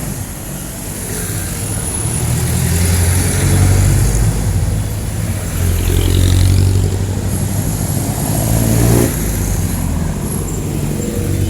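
Jeepney diesel engines running in close street traffic, a low steady engine note swelling and easing a few times as vehicles move past.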